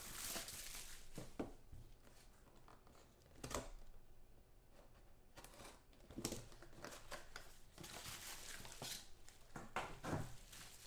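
Bubble wrap and packaging crinkling and rustling as hands unwrap a trading-card box's contents, in irregular bursts with a short lull about four seconds in.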